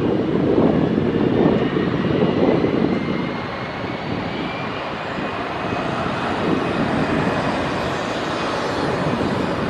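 Boeing 737-800 CFM56 turbofan engines running as the airliner rolls along the runway after touchdown: a steady rumble with a faint high whine that slowly rises in pitch.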